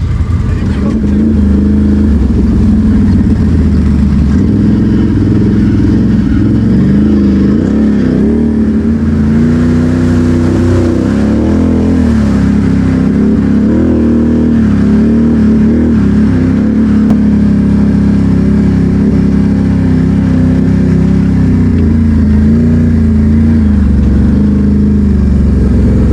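ATV engine running while being ridden, its pitch rising and falling as the throttle is worked.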